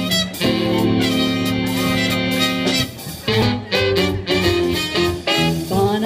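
Live 1940s-style swing band playing: a held chord for about three seconds, then shorter, moving melodic phrases.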